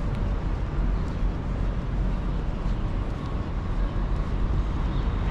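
Steady low rumble of city street traffic and urban ambience.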